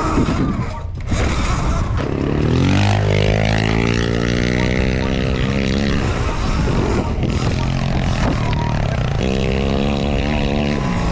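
A dirt bike revving up, its pitch climbing and then holding, and again later, with wind buffeting the microphone as the bike is ridden.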